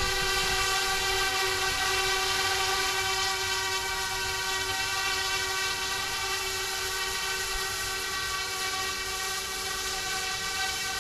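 Yu Xiang F06 EC135 RC helicopter in flight: a steady electric whine of its motors and spinning rotors, holding one pitch throughout and easing slightly in level after a few seconds.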